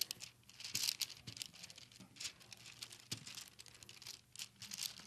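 Faint, irregular crinkling and soft patting as hands press and fold soft breadstick dough on a parchment-paper-lined baking sheet.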